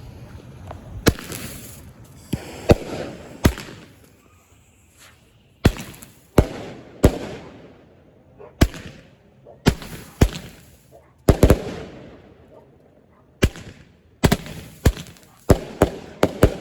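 Firework candles shooting, a series of sharp bangs at irregular intervals, some in quick pairs, each trailing off briefly.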